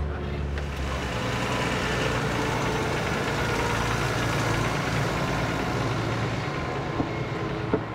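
Case IH tractor's diesel engine running as it pulls a Krampe dump trailer past over dry, dusty dirt, with tyre and gravel noise under the engine hum. The sound is strongest in the middle and eases off toward the end, with a couple of short knocks near the end.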